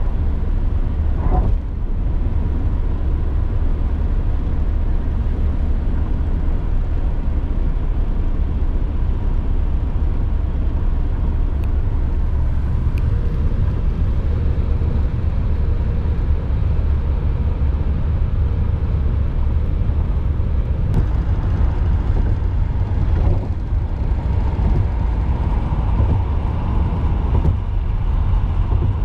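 Steady low rumble of a moving vehicle in motion, with even running noise and no distinct events.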